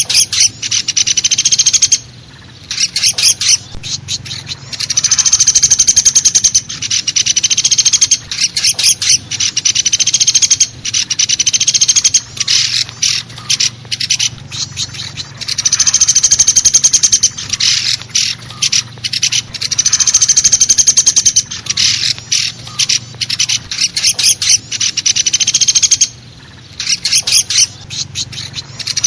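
Pelatuk besi woodpecker (common flameback) calling: loud, rapid trilling rattles about two seconds long, repeated every few seconds, with shorter bursts of quick notes between them. A faint steady low hum runs underneath.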